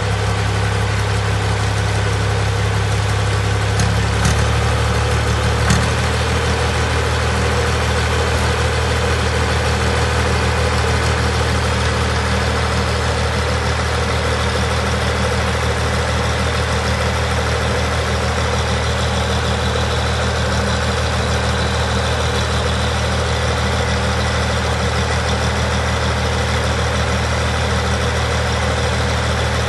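Tractor engine idling steadily, with two brief clicks about four and six seconds in.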